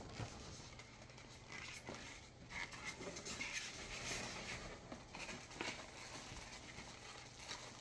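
Faint rustling and light clicks of small items and packaging being handled and sorted by hand.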